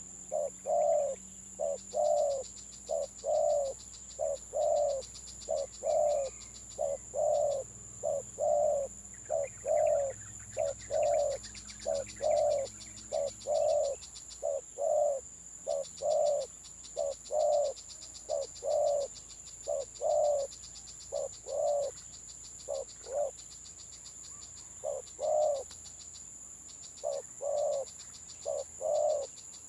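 Spotted doves (tekukur) cooing over and over in short low notes, about one to two a second, in the stuttering 'gagap' style, with a few pauses in the second half. Insects keep up a steady high whine and pulsing chirps behind them.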